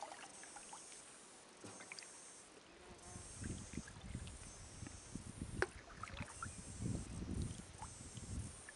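Kayak paddling: faint, irregular swishes and drips of water as the paddle dips, with a sharp light knock about halfway through, typical of the paddle touching the kayak.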